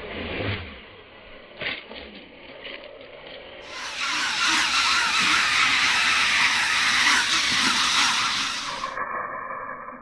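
Brushless 1103 motors of a small waterproofed FPV whoop drone spinning its 2-inch props in pool water, loudly churning and splashing the water from about four seconds in until near the end. The props are labouring under the heavy load of the water.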